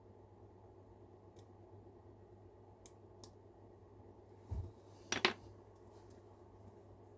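Small hand tools and plastic slot-car parts being handled on a workbench: a few faint clicks, then a soft knock about four and a half seconds in and a brief louder clatter just after it, over a steady low hum.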